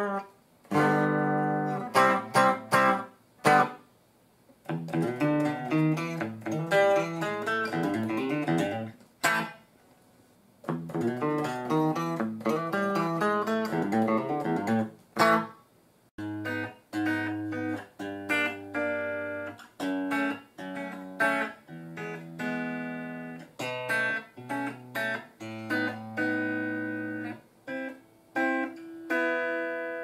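Clean electric guitar played through a solid-state guitar combo amplifier. It plays picked single-note runs and chords in short phrases with brief pauses, and the later phrases have held chords over low bass notes.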